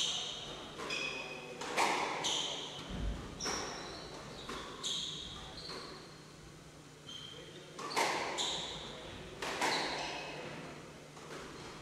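A squash rally: the ball cracks off rackets and the walls at irregular intervals, each hit ringing briefly in the court, with short squeaks of players' shoes on the wooden floor between the shots.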